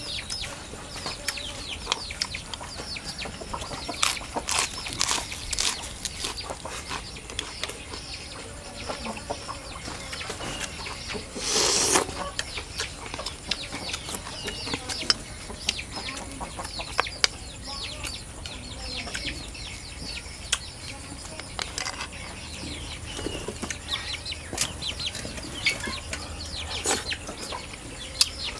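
Chickens clucking and chirping in a farmyard, with many short sharp clicks and one brief rushing burst about twelve seconds in.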